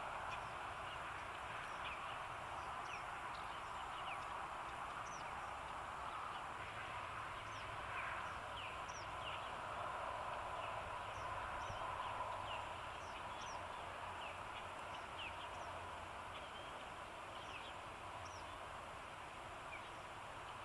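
Small songbirds giving short, high chirps scattered throughout, over a steady background hiss.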